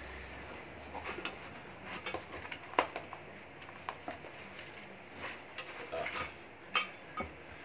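Small metal motorcycle shifter parts clicking and clinking together as they are handled, in scattered sharp knocks, the sharpest about three seconds in and near the end.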